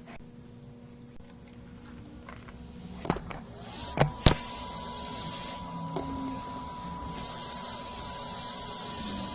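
A few sharp clicks, then a hot air rework station starting up: a whine glides up and settles into a steady tone, and a hiss of blowing air builds beneath it.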